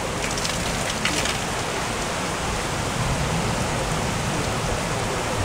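Heavy downpour: rain pouring down in a steady hiss.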